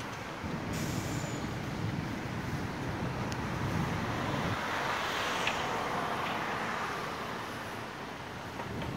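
Road traffic going by on a street, a steady rumble with one vehicle passing louder around the middle.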